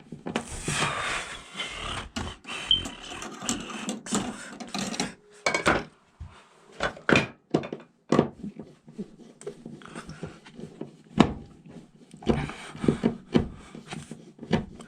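Screws being driven by hand with a screwdriver to mount a smoke alarm bracket on a board. Stretches of scraping and grinding come near the start and again near the end, among irregular knocks and clicks of handling.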